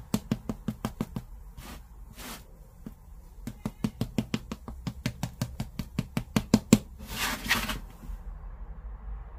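A silicone pastry brush patting and brushing the top of a cheese-filled flatbread in a nonstick frying pan: quick soft taps at about five a second, in two runs. Near the end comes a short scraping rush as a spatula slides under the bread in the pan.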